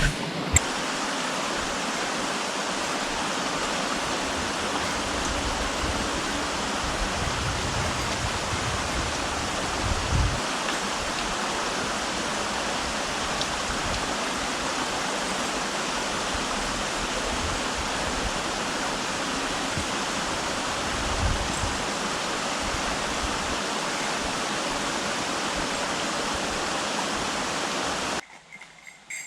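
Running water from a rushing creek, a loud, steady hiss that goes on without a break and cuts off suddenly near the end, with a couple of soft low thumps along the way.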